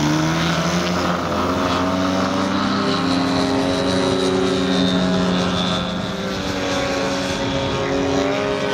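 A large radio-controlled aerobatic model aeroplane's motor and propeller running at power. The pitch rises sharply as the throttle opens right at the start, then holds fairly steady with small rises and falls.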